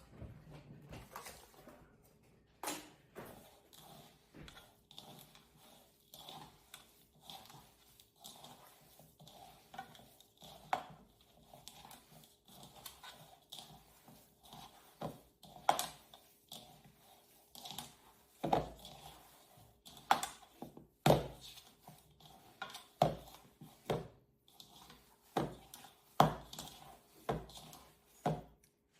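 Hands mixing and kneading bread dough in a bowl: irregular squelches and knocks, coming closer together and louder in the second half.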